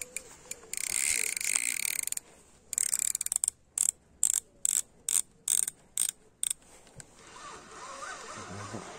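Small spinning reel on a light rod ratcheting with a hooked carp pulling on the line: a buzz of about a second and a half, then about ten short, even ratchet bursts, roughly three a second.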